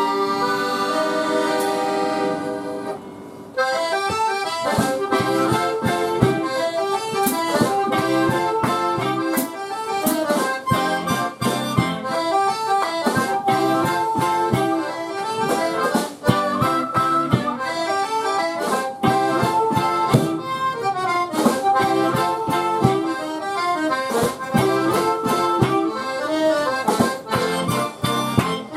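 Live accordion-led Louisiana-style band: the accordion holds a chord, then about three and a half seconds in the full band comes in with accordion melody over a steady drum beat, bass, guitar and harmonica.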